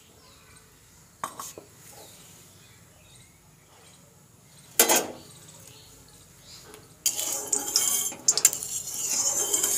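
Metal utensils clinking against a metal kadai: a small click about a second in, one sharp clank about five seconds in, then a few seconds of clattering and scraping near the end.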